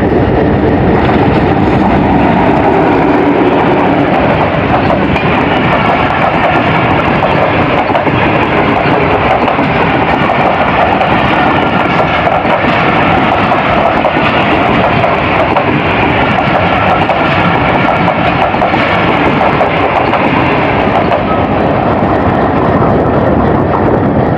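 Diesel-hauled Pakistan Railways passenger train passing at close range: the locomotive and then a long line of coaches go by, giving a loud, steady rush of wheel and rail noise.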